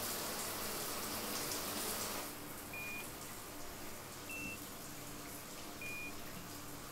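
A steady hiss of running water that cuts off after about two seconds, then three short electronic beeps about a second and a half apart, the middle one a little higher, as buttons on a keypad lock are pressed.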